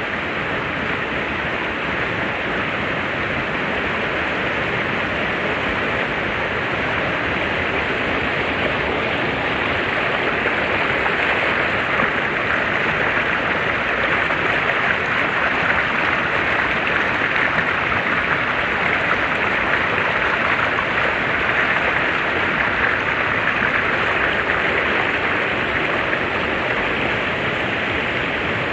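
Steady rushing of flowing river water, an even noise with no distinct splashes, growing a little louder about ten seconds in.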